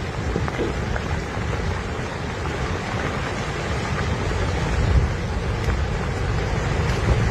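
Landslide: a mountainside collapsing, with a steady low rumble of sliding rock and earth and wind noise on the microphone.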